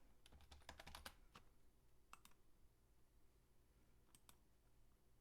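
Faint computer keyboard typing: a quick run of keystrokes in the first second, then a few scattered clicks.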